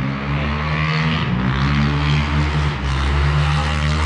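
Motorbike engine running and revving, its note rising and falling.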